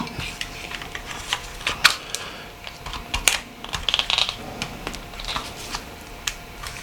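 Irregular small, sharp clicks and taps of a mobile phone's metal body shell and parts being handled and snapped together.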